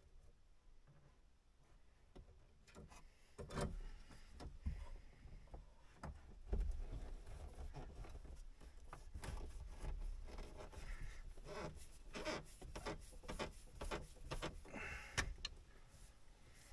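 Scattered clicks, taps and light rattles of plastic and metal parts and wiring being handled and pushed into a vehicle dashboard, over a low rumble. The clicks start about three seconds in and come thickest in the second half.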